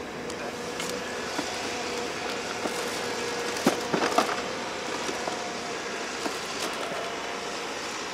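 Small wood fire in a folding grill crackling over a steady hiss, with scattered pops and a short flurry of sharper cracks about halfway through.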